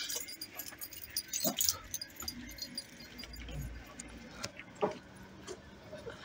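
Light metallic jingling with scattered small clicks and knocks, and a brief low rumble about three seconds in.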